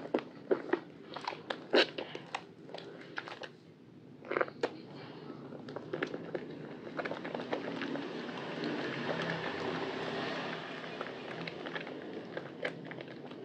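Soaked Lervia milk soap squeezed and kneaded by hand in a basin of foamy water: sharp wet crackles and squelches for the first few seconds, then a denser, continuous squishing of lather, with a few more crackles near the end.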